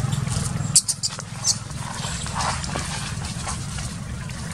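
Short, high-pitched squeaks from a baby macaque, two or three sharp ones about a second in and a weaker one later. A low motor hum drops away just before the first squeak.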